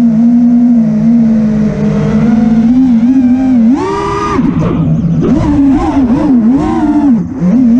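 The four Brother Hobby Returner R6 2306-2450kv brushless motors of an FPV quadcopter whining with their propellers. The pitch holds steady for the first few seconds, jumps sharply higher about halfway through, then rises and falls quickly several times as the throttle is worked.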